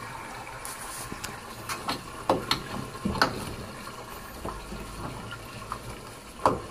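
Water draining out of a washing machine, a steady rushing hiss with a low hum from the drain pump. A handful of sharp clicks and knocks land a couple of seconds in and again near the end.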